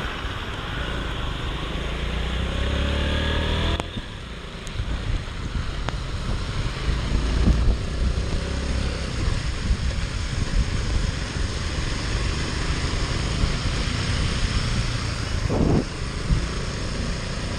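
Motorcycle engine accelerating, its pitch rising for a few seconds and dropping off suddenly about four seconds in, then rising again. Steady wind noise on the microphone and the hiss of tyres on the wet road run beneath it.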